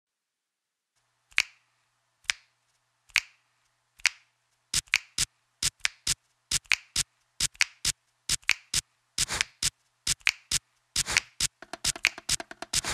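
Sharp snaps played in time: single ones just under a second apart at first, then doubled and tripled into a quick, building rhythmic beat. A low pitched bass line comes in near the end.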